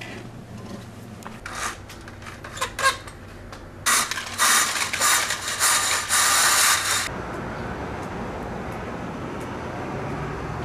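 Vertical window blinds being drawn back: a few scattered clicks, then a loud clattering rattle of the slats and track that lasts about three seconds and stops suddenly.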